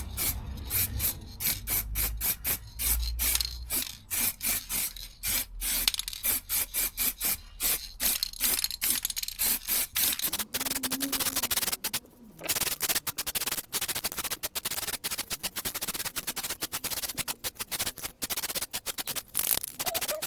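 Clear coat being sprayed onto an alloy wheel, a hiss that comes in rapid short bursts at first and then runs almost continuously from about halfway through.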